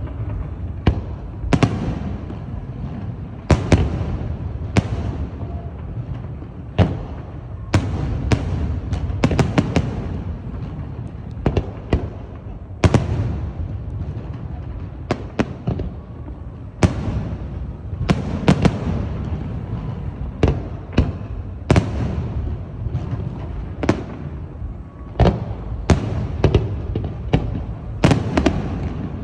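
Aerial fireworks show: a steady run of sharp shell bursts, irregular and often in quick clusters, over a continuous low rumble of distant booms echoing.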